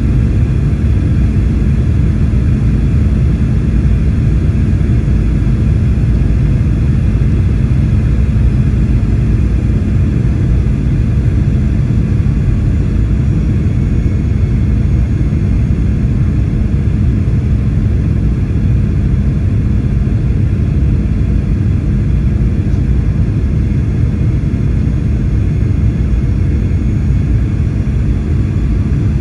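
Steady cabin noise inside a Boeing 737-800 on approach, heard from a window seat over the wing: a loud low rumble of airflow and the CFM56 turbofan engines, with a few steady tones above it.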